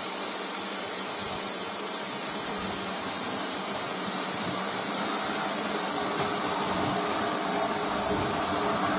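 Steady hiss of steam on the footplate of Peppercorn A1 Pacific steam locomotive 60163 'Tornado', with faint steady tones underneath.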